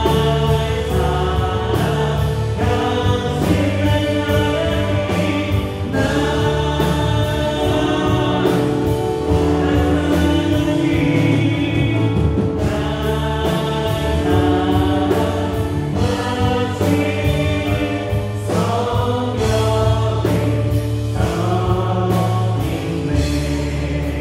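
Live worship band playing a praise song with voices singing: electric guitar, bass guitar, drum kit, and Korg Triton and Yamaha Montage keyboards, with a steady beat.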